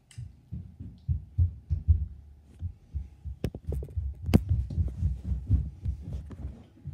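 Handling noise from a phone camera being moved and set down on a carpeted floor: irregular dull low thumps, with two sharp clicks around the middle.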